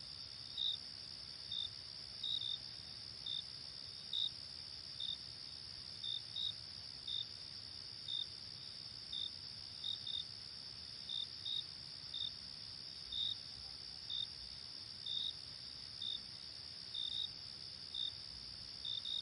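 Night insects: a steady high-pitched insect trill, with a cricket chirping in short pulses about once or twice a second over it.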